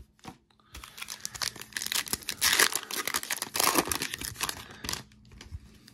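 A shiny Topps Holiday baseball card pack wrapper being torn open and crinkling in the hands for about four seconds, dying away shortly before the end.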